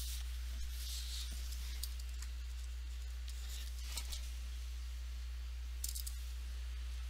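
Paper sheets being shifted and rustled by hand, with a few light taps and clicks, over a steady low electrical hum.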